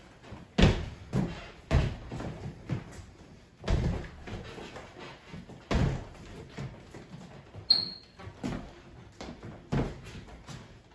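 Sneakers landing with thuds on a hardwood floor as people jump and lunge, irregularly about once or twice a second, with one short sneaker squeak on the wood about two-thirds of the way through.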